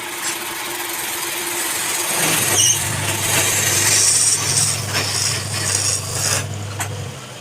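Wood lathe motor humming steadily while a turning tool scrapes and cuts against the spinning wood, with a rough hissing scrape over the hum. The hum drops out near the end.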